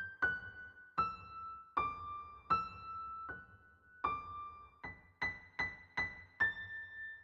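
Background music: a slow keyboard melody of single notes, each struck and left to ring out, about one or two notes a second.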